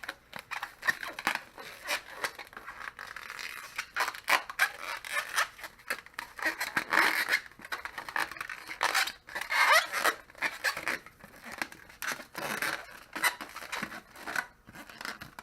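Irregular scraping and rubbing with many small clicks, like something being handled close to the microphone, with a few brief squeaks near the middle.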